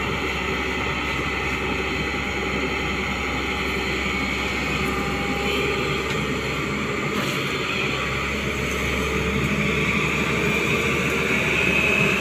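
Hyundai 245LR long-reach excavator's diesel engine running steadily as the long boom lifts out of the pit, getting a little louder near the end.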